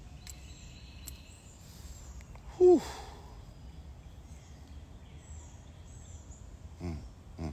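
A man's loud exhaled "whew" about three seconds in, falling in pitch, over steady faint outdoor background noise with birds chirping faintly.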